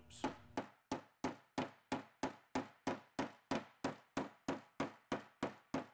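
Hand hammer striking again and again, about three blows a second, flattening the bottoms of the rivets of a Mato H Series belt fastener against the reinforced metal strip of the installation tool.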